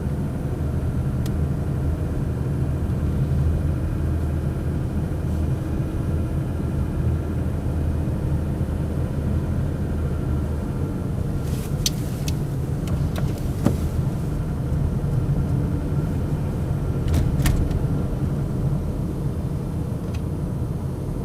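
Toyota 2GR-FE 3.5-litre V6 running steadily with a low drone, with a few sharp clicks about halfway through and again later. The owner takes it for a mild engine knock that comes on uphill with the engine mildly warm.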